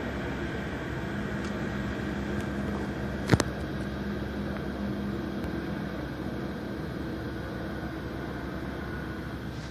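Helicopters in flight, their rotors and engines making a steady noise with a faint hum. A single sharp click about three seconds in.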